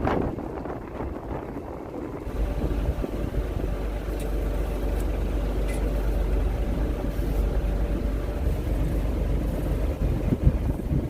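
Boat engine running steadily, its low rumble rising in level about two seconds in and then holding even.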